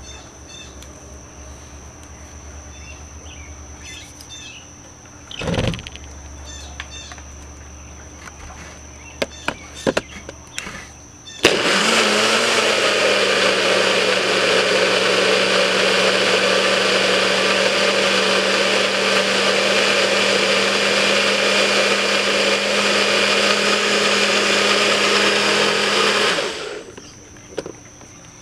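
NutriBullet personal blender motor running at a steady pitch for about fifteen seconds, blending leafy greens, kiwi and pineapple into a green smoothie; it starts suddenly about eleven seconds in and stops a couple of seconds before the end. Before it, a few clicks and a knock.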